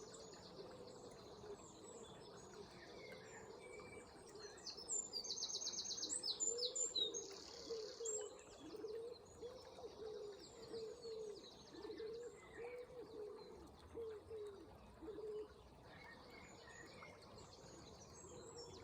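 Several songbirds chirping and singing over a steady wash of flowing water, with one loud rapid trill about five seconds in. A low call, like a bird cooing, repeats many times through the middle.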